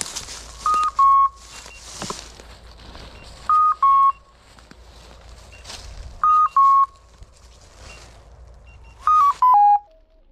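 Hunting dog's beeper collar in point mode, sounding a loud two-note beep, high then slightly lower, four times about every three seconds, with a quick run of falling tones near the end: the signal that the dog is standing on point on a woodcock. Dry leaves and twigs crackle underfoot between the beeps.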